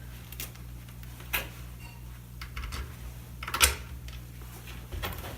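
Small metal screws and engine parts being handled and fitted, giving a few scattered light clicks and taps, the sharpest about three and a half seconds in, over a faint steady low hum.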